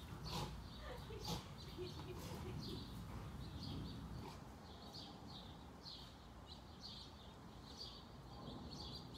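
Faint, short bird chirps repeating about twice a second, with a couple of sharp clicks in the first second or so.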